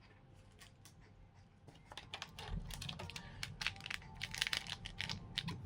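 Trading cards and booster-pack packaging handled at close range: light clicks and crinkling rustles that start about two seconds in.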